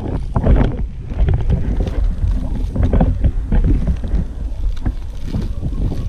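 Inline skate wheels rolling over rough asphalt, a loud uneven rumble with short scuffs now and then, mixed with wind buffeting the microphone.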